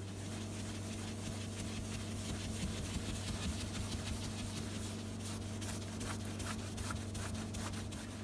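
Soft cloth rubbing scratch remover into a scratched TV screen cover by hand, in repeated short buffing strokes that become stronger and quicker about five seconds in, over a steady low hum.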